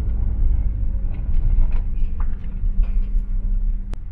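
Delivery van on the move: a steady low rumble of engine and road noise, with a sharp click near the end.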